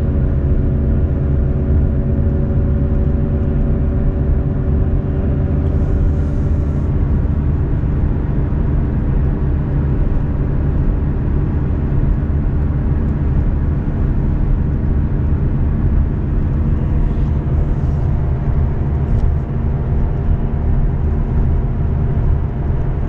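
Chevrolet Malibu driving, heard from inside the car: a steady low engine and road rumble with a faint multi-tone hum. The car is running strangely in reduced engine power, which the owner puts down to a failing alternator.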